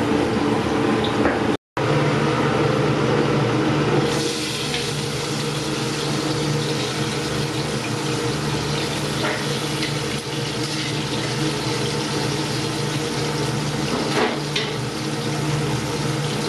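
Painted spiny lobster meat sizzling in butter in a steel frying pan, a steady hiss over a low, even hum, with a few light clicks of the turner against the pan.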